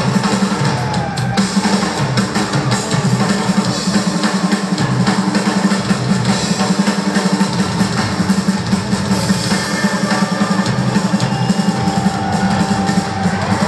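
Rock drum kit played live in a drum solo: busy kick, snare and rolls, with the distant, roomy sound of an arena.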